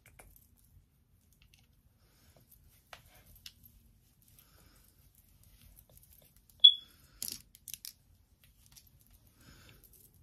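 Hands working through hair with faint rustles, then one sharp plastic click about six and a half seconds in, followed by a brief burst of rustling: a claw clip being clipped onto a section of hair.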